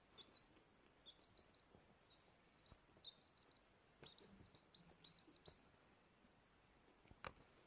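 Baby chick peeping faintly in quick runs of short, high cheeps, three to five at a time, stopping about two-thirds of the way in. A single sharp click near the end.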